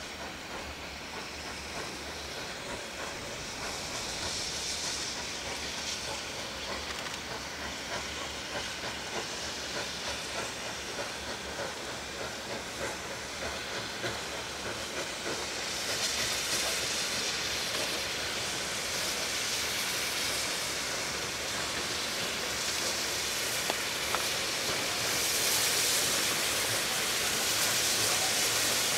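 Steam locomotive 3237, a C32-class 4-6-0, hauling a passenger train past, with steam hissing and the train's sound growing louder as it comes closer. Near the end its carriages roll by.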